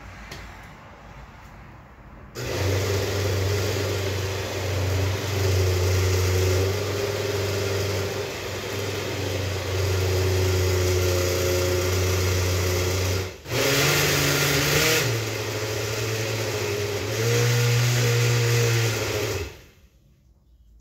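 Countertop blender motor running, puréeing cooked pinto beans with chili paste. It starts about two seconds in, stops briefly about halfway and starts again, with two stretches of higher pitch in the second half, then cuts off near the end.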